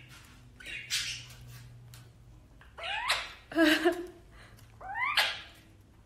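A blue Indian ringneck parrot imitating kissing sounds: four short smacking kisses, the later ones with a squeaky rising note. The loudest comes a little past halfway.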